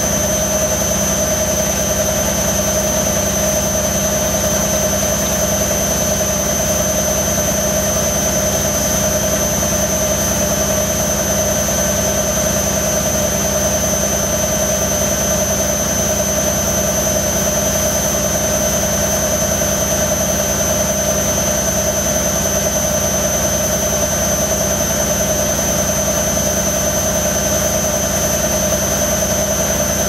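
Zanussi FL 1234/A front-loading washing machine on a short spin during its delicates wash, the motor holding a steady speed with a constant high whine over a low hum.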